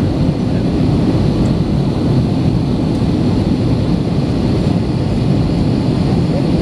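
Cabin noise inside an Airbus A321 with CFM56-5B engines: a loud, steady rumble of engines and airflow.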